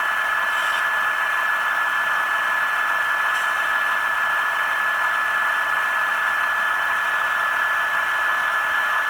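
HO-scale GE Tier 4 GEVO (ET44) model locomotive's sound decoder playing its dynamic brake sound through the onboard speaker: a steady fan-like rush with one constant high whine. The dynamic brake has a single sound that stays the same as the brake is notched down.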